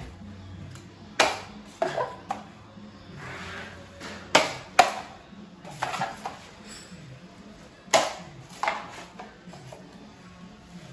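Steel drywall taping knife clinking and scraping against the edge of a metal mud pan as joint compound is loaded onto the blade and wiped off: about eight sharp metallic clinks at uneven intervals, the loudest a little over four seconds in and again about eight seconds in.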